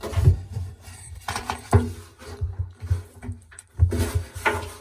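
Plastic drum paddle being slid along and pushed into place inside a Hotpoint washing machine drum: a string of irregular knocks, clicks and rubbing scrapes as it is worked home onto its pegs.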